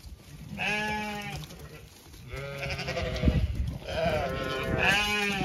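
Zwartbles sheep bleating: three or four long, wavering bleats, some from different sheep overlapping.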